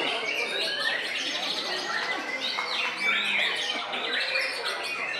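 White-rumped shamas singing: loud, varied whistles, trills and chirps, with several birds' phrases overlapping.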